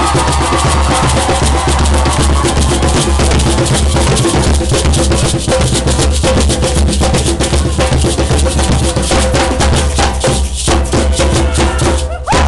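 Several hand drums, among them a goblet drum, beaten with bare hands in a fast, dense rhythm. The drumming stops abruptly near the end.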